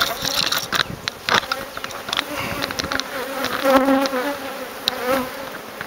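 Honeybees buzzing in an open top bar hive, a wavering hum that swells about two-thirds of the way through, with a few sharp clicks scattered through it.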